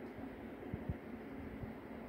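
Steady low hum and faint room noise, with a few soft low thumps about two-thirds of a second in, typical of a handheld phone being moved while filming.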